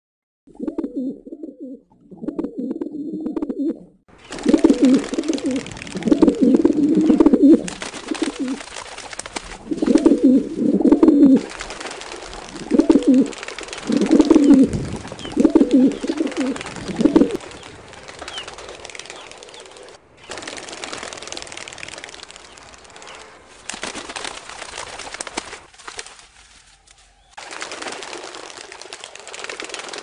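Rock pigeon cooing: a run of low, repeated coo phrases, which stop about two-thirds of the way through. A steady hiss with no coos follows, cutting out and back in a few times.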